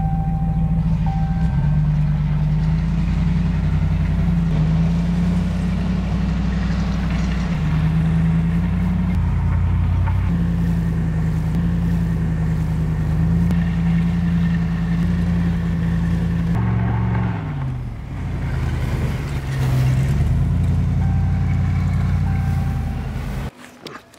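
Dodge Ram pickup's engine running steadily under load while it tows a strapped firewood bag over asphalt, with a rushing road noise underneath. About two-thirds of the way through the engine's pitch drops for a couple of seconds, then picks up again, and the sound cuts off suddenly near the end.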